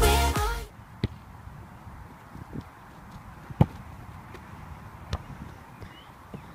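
A football being kicked and landing on grass: a few sharp thuds over quiet outdoor background, the loudest about three and a half seconds in.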